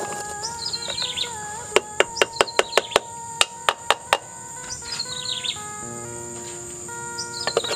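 Background music of sustained notes, with short falling bird chirps over it and a quick run of sharp taps, several a second, from about two to four seconds in.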